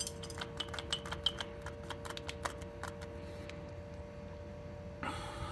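Light, irregular metallic clicks and ticks from the truck's wheel hub assembly being handled, thick for about three seconds, then thinning out, over a faint steady hum.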